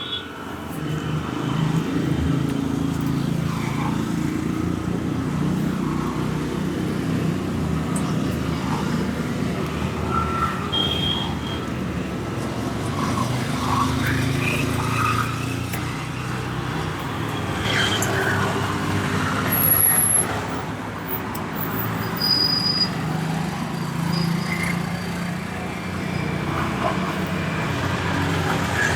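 Street traffic noise: a steady low rumble of passing vehicles, with a few brief high tones and faint clicks over it.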